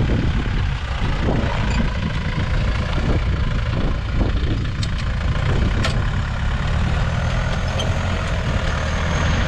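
Off-road 4x4's engine running steadily at low revs, with a couple of sharp clicks about halfway through.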